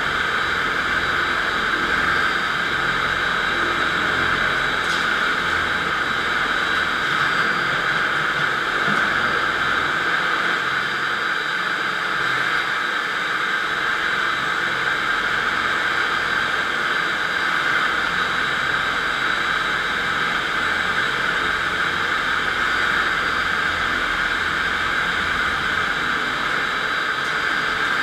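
FastPrep concrete floor grinder running steadily, its electric motor turning diamond grinding plates against a concrete floor: an even, unbroken grinding noise with no changes.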